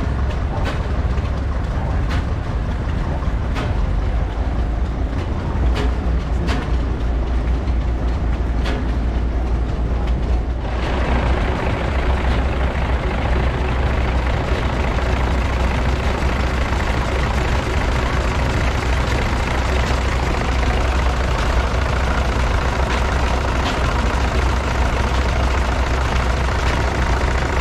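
A large Robey horizontal stationary engine running, with a sharp exhaust beat every second or two. After about ten seconds this gives way to a Gardner multi-cylinder diesel engine running steadily as it drives a generator.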